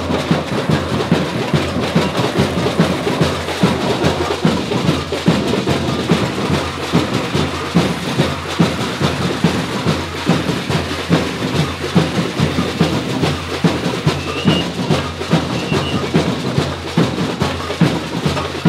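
Music with a dense, fast percussion rhythm, running steadily over a low sustained bass.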